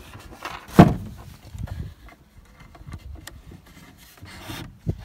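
Wooden chair parts being handled during assembly: one loud knock about a second in, then light clicks and rubbing as a bolt and washer are fitted to the arm.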